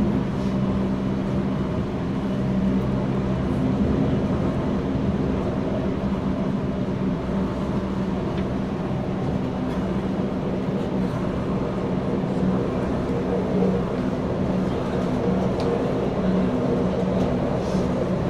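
Interior running noise of a Tokyo Metro 9000 series subway car under way: a steady low hum over a continuous rumble of wheels on rail.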